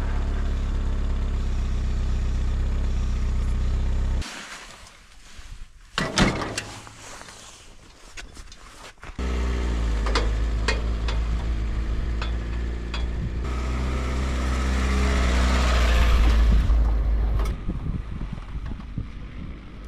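Homemade 4x4 UTV's engine running steadily. About four seconds in it drops away to a quieter stretch with a few sharp clanks and knocks, then the engine runs again and grows louder as the UTV tows the homemade wood splitter, falling away near the end.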